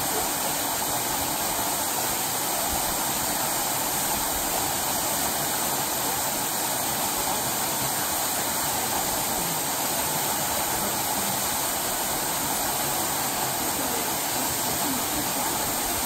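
Waterfall pouring over rock into a shallow plunge pool: a steady rush of falling water.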